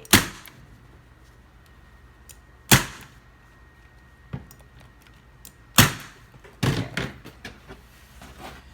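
Staple gun firing staples through folded upholstery fabric into a stool's board: four sharp snaps a few seconds apart, with lighter clicks and handling between them.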